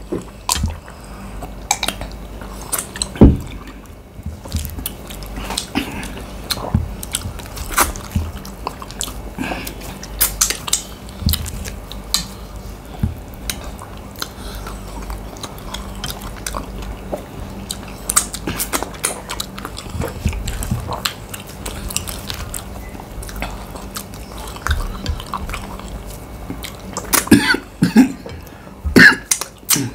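People eating quickly, with steady chewing and biting and many sharp clicks throughout. There is a loud click about three seconds in and a cluster of louder clicks near the end.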